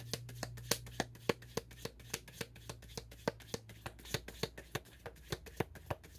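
A deck of reading cards being shuffled by hand: a quick, continuous run of crisp card snaps, several a second.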